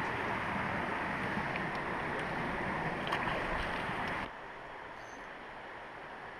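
Small creek's water rushing steadily, dropping suddenly to a quieter rush a little over four seconds in.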